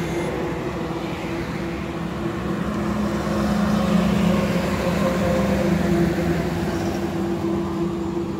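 Highway traffic at close range: a Toyota car's engine running as it drives past close by, loudest about four seconds in, with trucks and other vehicles going by.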